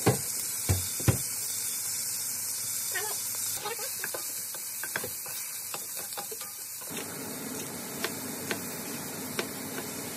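Pork sizzling in a hot pot as it is stir-fried with a wooden spatula. A few sharp knocks in the first second and lighter clicks later come from the spatula striking the pot.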